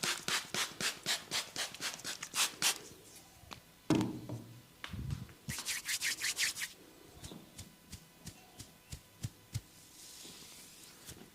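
Fingers scratching and rubbing briskly through hair on the scalp in quick rasping strokes, two bursts of them, with a dull thump about four seconds in and a few soft ticks near the end.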